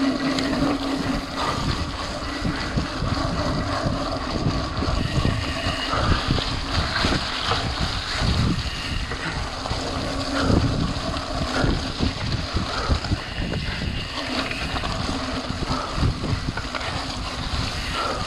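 Mountain bike ridden over a muddy trail, heard from a chest-mounted action camera: wind noise on the microphone, tyres rolling through mud, and frequent knocks and rattles from the bike over bumps.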